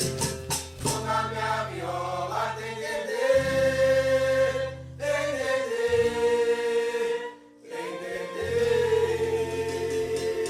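A song with voices singing long held notes over a steady bass line. A shaker rattles at the start and again near the end, and the music briefly drops away about seven seconds in.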